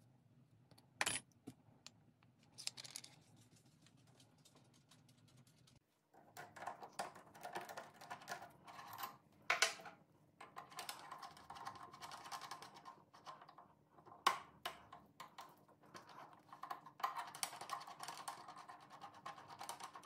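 Light, irregular clicking and tapping of small metal tools being handled: a hex key and a stop collar being set on a drill bit, then small parts handled at a drill press after a brief dropout about six seconds in, with a few sharper ticks.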